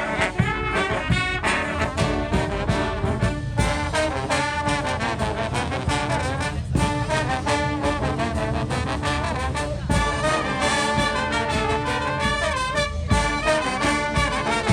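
Brass street band playing a lively tune, with trombones and trumpets over a steady drum beat.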